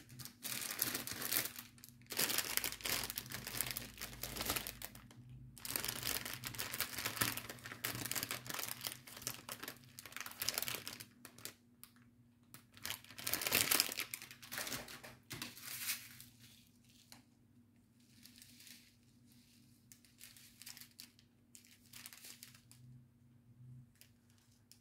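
Kit packaging being handled and rummaged through, crinkling and rustling in repeated bursts, dying down to a few light rustles about two-thirds of the way in.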